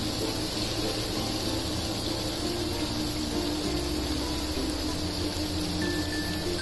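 A steady hiss with a faint low hum and a few soft held tones.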